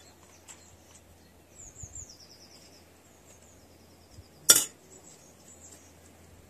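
A single sharp metallic clink about four and a half seconds in, as a metal spoon and scissors are put down on the table. Small birds chirp in the background, with a quick run of chirps about two seconds in.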